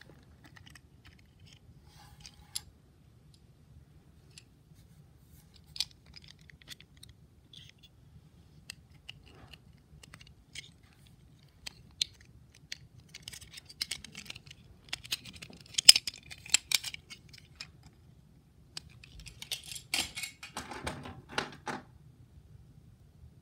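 Hard plastic shell of a Hasbro i-Dog toy being handled and taken apart: scattered sharp plastic clicks and knocks, with two busier stretches of clicking and scraping, the loudest click about two-thirds of the way through.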